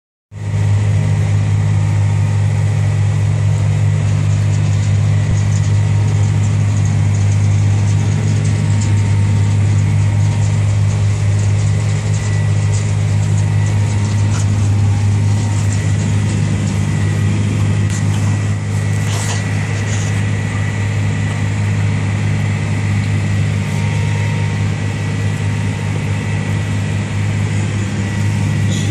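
Tractor and sugar beet harvester running steadily under load, a constant low engine drone with a faint steady high whine, heard from inside the tractor cab. A brief rattle about two-thirds of the way through.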